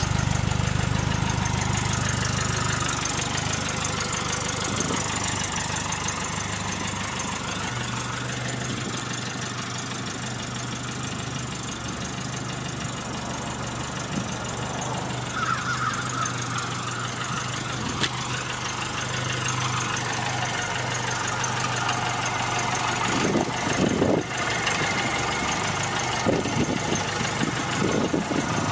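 1959 Mercedes-Benz 190SL's 1.9-litre single-overhead-cam four-cylinder engine idling steadily, with a couple of brief thumps about three-quarters of the way through.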